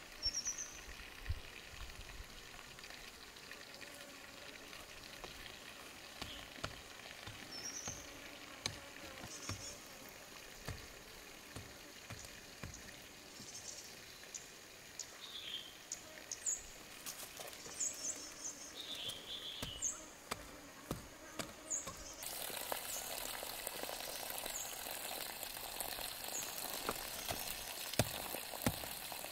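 Soft rustling and small taps of soil being handled while cabbage seedlings are planted, with short bird chirps now and then. About two-thirds of the way in, a steady hiss starts, with scrapes and crumbling of soil being worked with a hand tool.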